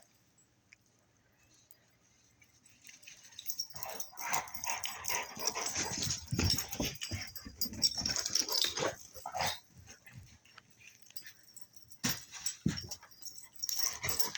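Puppies whimpering and yipping amid noisy rustling and scuffling. It starts about four seconds in after a near-quiet start, dies down around ten seconds, and picks up again near the end.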